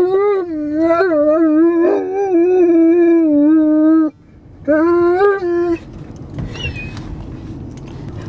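Irish Wolfhound howling ("singing"): one long howl with a wavering pitch lasting about four seconds, a brief break, then a second, shorter howl, after which the howling stops and only a quieter noisy sound is left.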